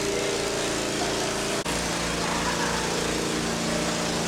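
A small engine running steadily with a regular low throb, its tone shifting slightly after a brief dropout about one and a half seconds in.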